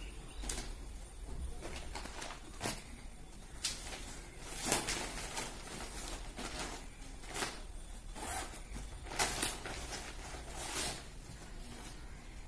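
Plastic packaging of salwar sets rustling as they are handled and pulled out, in a string of short swishes, the loudest about five seconds in.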